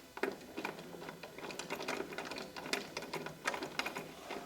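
A Phillips screwdriver drives a metal lock screw into a door handle's lock mechanism, with a run of irregular small clicks and scrapes as the screw turns and the tip works in the screw head.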